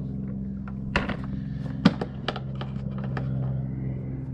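A small engine running steadily, with a few sharp clicks and knocks about one and two seconds in.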